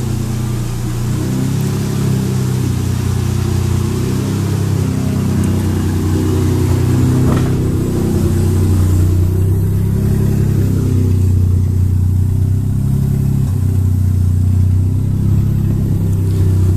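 Drift truck's swapped-in Toyota 1JZ straight-six running loud at idle, its note wavering slightly, on an exhaust that is not yet finished.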